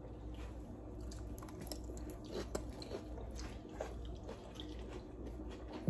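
Quiet sounds of eating a salad: scattered small utensil clicks and soft chewing, over a low steady hum.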